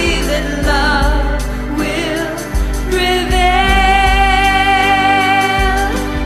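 Slow pop ballad: a female voice sings long, wavering notes, one held for a few seconds near the middle, over a steady low bass and keyboard accompaniment.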